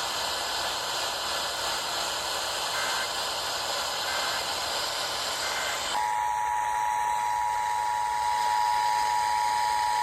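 Radio static hiss with three faint, brief data bleeps, the SAME header bursts of an Emergency Alert System message. About six seconds in the hiss drops away and the loud, steady two-tone EAS attention signal begins.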